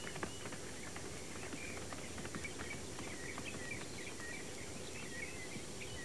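Outdoor field ambience of small birds chirping: many short high chirps, one after another, over a steady hiss.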